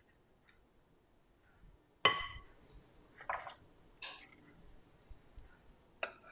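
Metal spoon clinking and scraping as macaroon batter is scooped and dropped into paper baking cups: one sharp, ringing clink about two seconds in, a few shorter scrapes and taps after it, and another click near the end.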